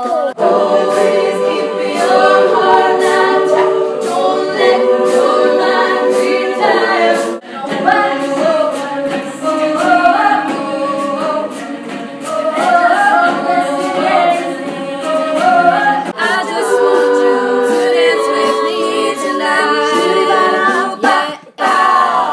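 All-female a cappella ensemble singing in close harmony with no instruments, in several song excerpts that break off and change abruptly three times.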